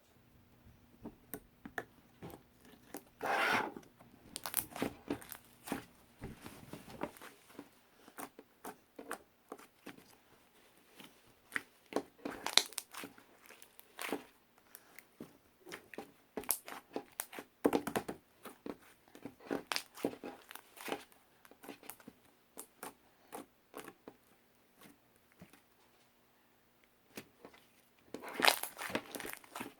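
Irregular close-up crinkling and crackling: many short clicks and rustles, with longer crumpling stretches about three seconds in and again near the end.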